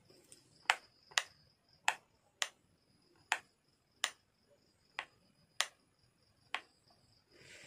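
Rocker switch on an electrical extension board clicked on and off about nine times at an uneven pace, switching a repaired LED bulb on and off to test it. A faint steady high chirring runs underneath.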